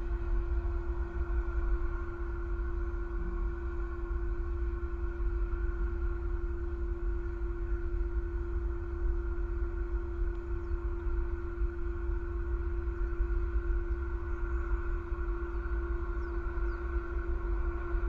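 Steady low outdoor rumble with a constant humming tone over it; a few faint high chirps near the end.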